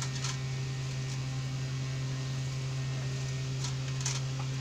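A steady low hum, with faint crackles and rustles of a plastic insulator sheet being handled and pressed onto a circuit board, near the start and again about four seconds in.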